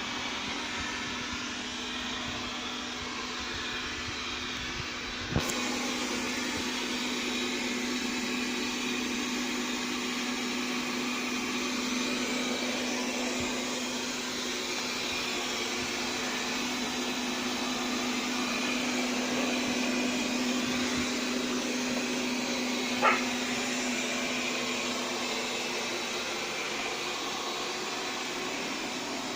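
Mi Robot Vacuum-Mop P robot vacuum running, a steady motor hum with an airy rush of suction, with a sharp click about five seconds in and another brief sharp sound later on.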